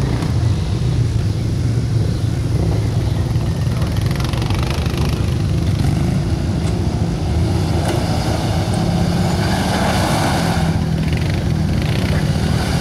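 Toyota Tacoma pickup's engine running steadily under load while crawling over rock. From about eight seconds in, a rush of noise joins it as the tyres scrabble and spin on rock and dust.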